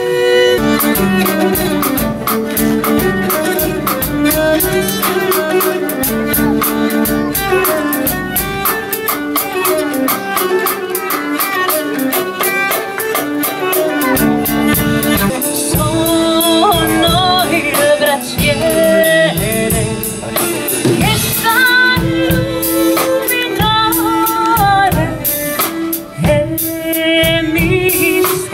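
Medieval-style folk music with a steady drumbeat under bowed strings, a nyckelharpa (keyed fiddle) among them; from about halfway through, a voice sings over it.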